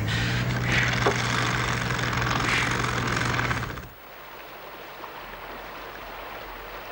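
A hand-held pneumatic drill runs steadily against a railway sleeper for about four seconds, with a low hum under it, then cuts off suddenly. A quieter, even rush of flowing river water follows.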